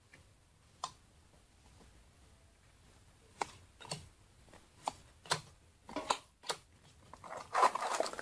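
Yu-Gi-Oh! trading cards being flipped through by hand, a series of sharp, irregular clicks as cards are flicked, then a foil booster-pack wrapper starting to crinkle near the end.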